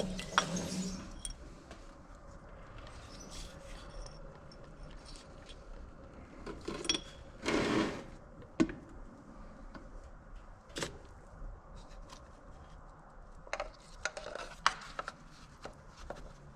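Scattered clicks and clinks of small metal parts being handled as the oil filter, its spring and the filter cover are taken out of the engine, with a brief scraping rub about seven and a half seconds in.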